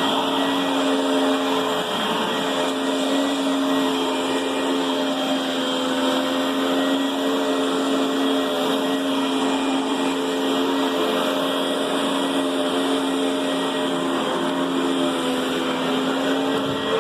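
Riccar Brilliance upright vacuum cleaner running steadily, its motor giving a constant hum over a loud rush of air.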